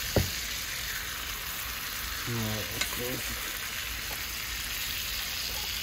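Two thick ribeye steaks sizzling in melted butter and juices in a hot cast iron skillet as they are basted with a spoon: a steady hiss, with one click near the start.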